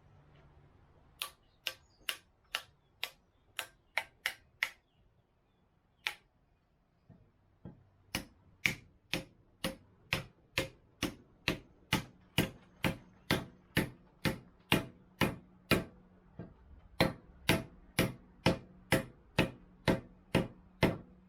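Hammer blows on an axe head and handle, driving a wedge home to tighten the head where it fits loosely. There is a quick run of about eight sharp strikes, then a steady pace of about two strikes a second.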